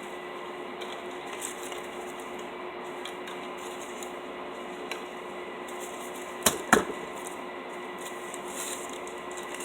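Faint handling and rustling of paper wrappers as plastic drinking straws are unwrapped one by one. Two sharp clicks come close together about six and a half seconds in.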